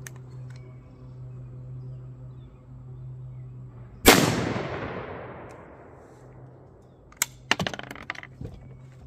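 A single shot from a .410 break-action shotgun firing a 3-inch Winchester rifled slug, about four seconds in, with a long echo fading over roughly three seconds. A few sharp clicks follow near the end.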